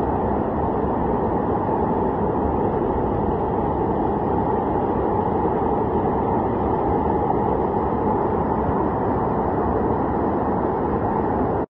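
Steady rushing of fast-flowing floodwater surging across a street, a constant noisy wash that stops abruptly near the end.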